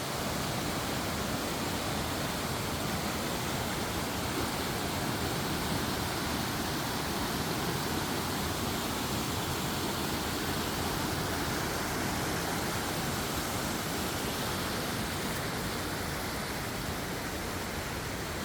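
Running water rushing steadily, without a break.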